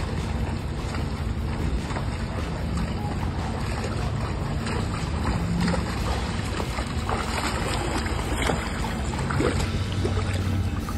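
Wind buffeting the microphone over the splashing of a swimmer doing front crawl in a pool; the splashes grow louder and sharper in the second half as the swimmer comes close.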